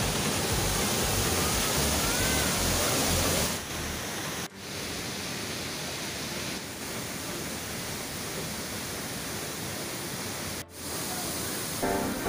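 Small waterfall's water rushing in a steady hiss, dropping a little in level about three and a half seconds in and broken by two brief gaps. Music comes in near the end.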